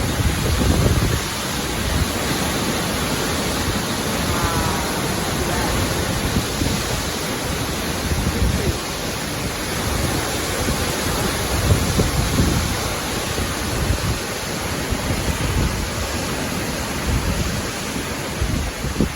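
Storm wind rushing and gusting, buffeting the microphone in a steady roar of noise, with stronger gusts about a second in and around twelve seconds.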